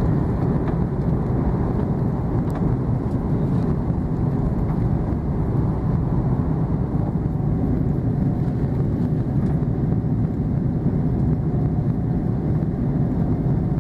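Steady, low-pitched cabin noise of an Airbus A330-300 climbing just after take-off: its jet engines running and air rushing past the fuselage, heard from inside the cabin.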